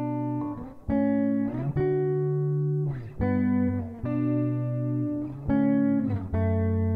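Instrumental intro of a stripped-back alternative-folk song on guitar: sustained chords that change about once a second, with brief gaps between them.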